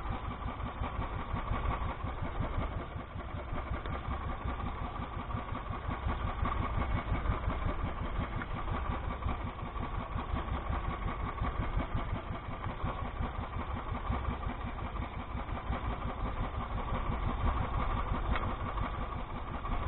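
Small outrigger fishing boat's engine idling steadily, an even rapid pulsing that never lets up.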